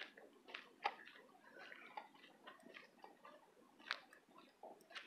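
Faint, irregular ticks and soft rustling of footsteps in dry leaf litter.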